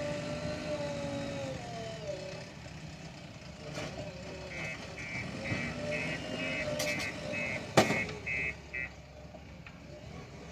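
Diesel engine of a JCB 3DX backhoe loader running, its revs dropping about two seconds in. A reversing alarm beeps about twice a second from midway, and there is a sharp metallic knock near the end of the beeping.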